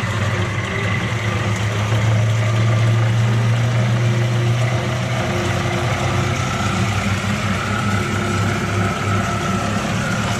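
Wells F-16-1 hydraulic band saw running with its blade turning and no cut under way: a steady hum from the 5 hp blade motor and gear drive.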